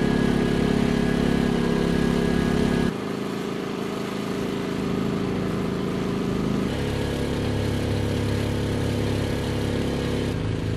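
Pulsar GX400BN dual-fuel generator engine running steadily, heard from about 23 feet, in short takes that change abruptly. It runs in normal mode at first, drops quieter in eco mode about 3 s in, comes up again in normal mode about 7 s in, and switches to eco mode near the end.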